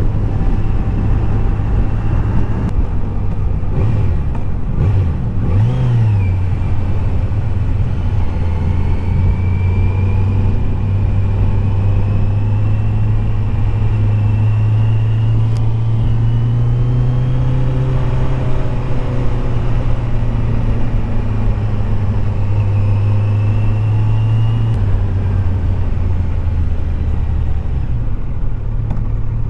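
Kawasaki Z900 SE's inline-four engine running steadily under way, its pitch wavering briefly about five seconds in and shifting slightly a few times later.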